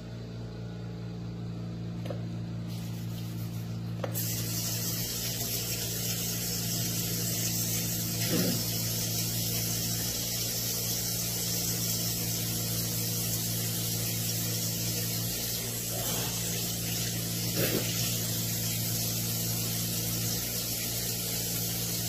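Kitchen faucet running water into a sink, a steady hiss that starts about four seconds in, over a steady low hum.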